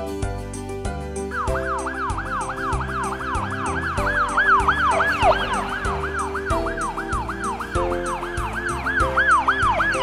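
Emergency-vehicle siren sound effect, a fast yelp that rises and falls about three times a second. It starts just over a second in, over background music with a steady beat.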